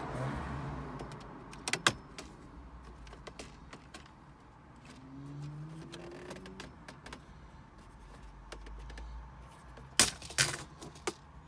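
Plastic dashboard trim housing of a VW Golf Mk5 being pulled off by hand, with handling rustle and sharp clicks as its clips let go: one about two seconds in and a quick cluster near the end.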